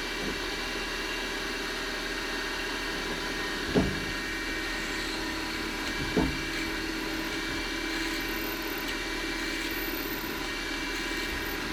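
Machine spindle running steadily as a cobalt drill bit peck-drills dry into aluminium, with two brief soft knocks about four and six seconds in. The bit is starting to load up with aluminium and protest just a little.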